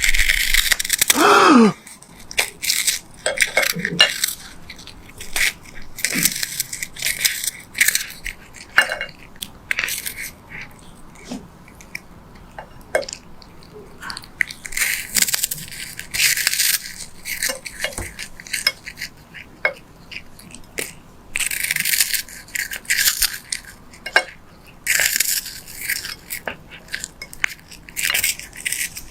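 A cat biting and chewing something hard, with irregular crisp crunches throughout and a short cry that falls in pitch about a second in.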